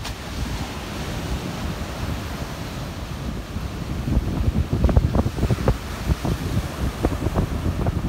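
Rough sea surf breaking and washing up on a sandy shore, with wind buffeting the microphone. The gusts grow stronger about halfway through.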